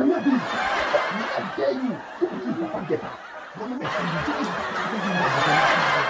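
Laughter mixed with men's excited, talking voices; the laughter grows fuller from about two-thirds of the way in.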